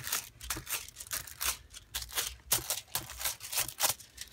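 Hands rustling and crinkling a crumpled sheet against a book page: a quick, irregular run of small crackles and taps.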